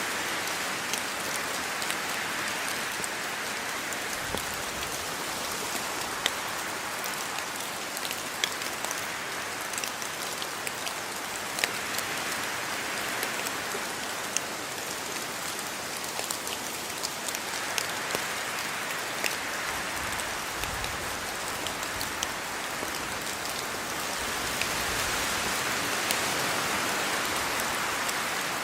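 Steady rain falling, an even hiss with many distinct drops pattering on a surface, swelling and easing gently every few seconds.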